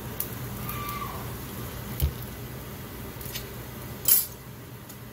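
Birria broth dripping and splashing back into the pot as a dipped tortilla is lifted out. A dull knock comes about two seconds in, and a short sharp hiss about four seconds in.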